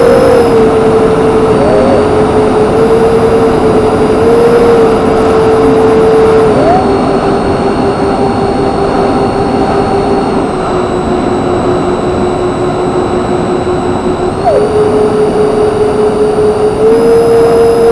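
Twin electric ducted fans of a radio-controlled A-10 model, heard from its onboard camera: a steady whine over a rush of air. The pitch steps down twice in the middle and back up twice near the end as the throttle is eased and then opened.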